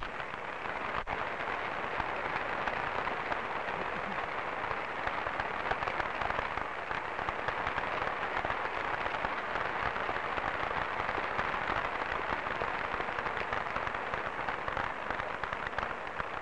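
Large crowd applauding steadily, a dense patter of many hands clapping that starts and cuts off abruptly.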